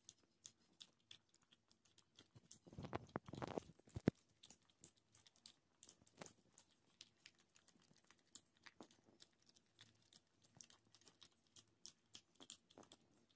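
Two just-weaned puppies eating soft, pasty dog food from a plastic bowl: faint, quick chewing and smacking clicks. There is a louder scuffle of noise around three seconds in and a single sharp knock just after.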